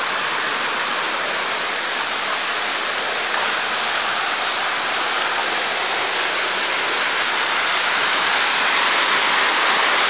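Small waterfall pouring into a rock pool: a steady rush of falling water that grows a little louder toward the end.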